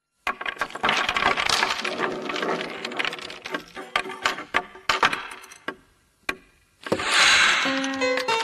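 Sound effects for an animated logo: a rapid clatter of small hard pieces, like blocks tumbling and knocking together, thinning out to a few separate knocks before stopping about six seconds in. Then a bright shimmering swell rises and leads into plucked musical notes near the end.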